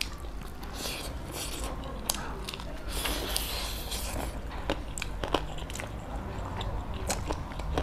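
Close-miked eating with the hands: wet chewing and mouth smacks, with fingers working rice and curry on a metal plate, making many short clicks and smacks throughout.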